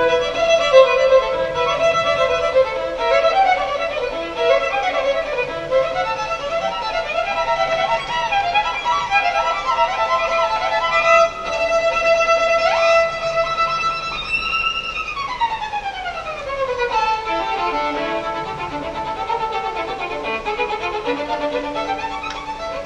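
Violin playing a melodic passage over held notes. Past the middle one note slides upward, then a long slow glide falls over about two seconds before the playing settles back on steady held notes.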